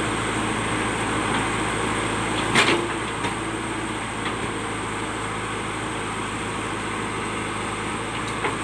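JCB backhoe loader's engine running steadily as it works, with a single sharp knock about two and a half seconds in.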